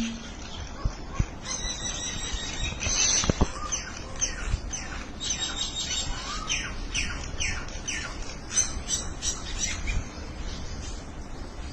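Several birds calling to one another in a busy run of short, high chirps and squawks, many of the notes falling in pitch, thinning out near the end.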